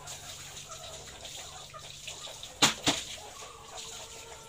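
Ready-to-lay hens clucking softly in the poultry house, with two sharp knocks about two and a half seconds in, a fraction of a second apart.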